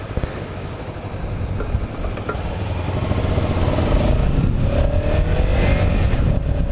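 Motorcycle engine with wind rumble on the rider's helmet mic, getting louder over the first few seconds as the bike gets under way. A rising engine note follows in the second half as it accelerates.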